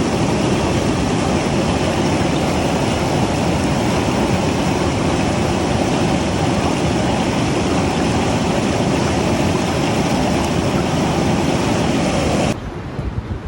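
Steady loud roar of whitewater rapids on the Ocoee River, running high with water released from the dam. About a second before the end it cuts abruptly to a softer rush.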